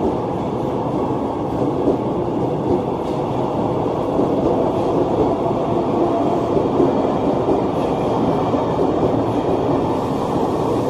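KRL Commuter Line electric train running past along the station platform, a steady rumble of wheels on rail.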